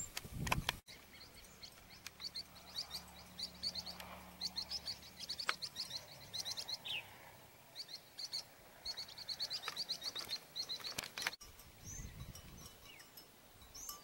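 Small birds chirping: rapid runs of short, high chirps repeated again and again, thinning to a few scattered calls near the end. A brief low noise sounds in the first second.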